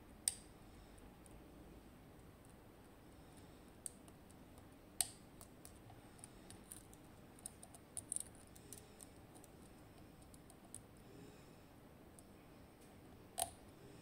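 Metal lock picks working the pins of an Assa 700 pin-tumbler cylinder: sharp, faint metallic clicks and ticks. The louder clicks come singly near the start, about five seconds in and near the end, with a quick flurry of small ticks in between.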